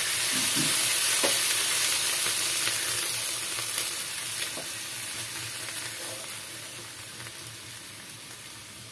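Boiled chickpeas and potato pieces sizzling as they go into a pan of hot spiced oil and masala, loud at first and dying down steadily. They are stirred with a wooden spatula, with a few sharp taps against the pan.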